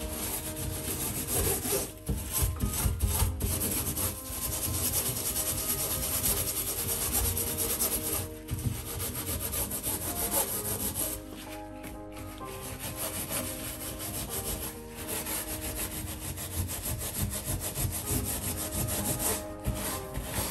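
Stainless steel spiral scourer scrubbed back and forth over a soapy stainless steel gas hob, a continuous rasping scrub with a few brief pauses.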